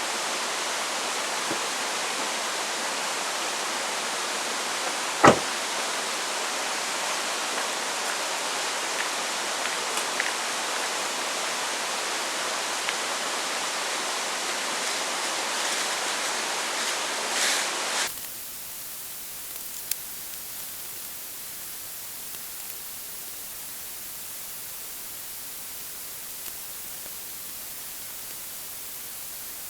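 Steady hiss of heavy rain, with one sharp knock about five seconds in. About eighteen seconds in it cuts off abruptly to a quieter, even hiss.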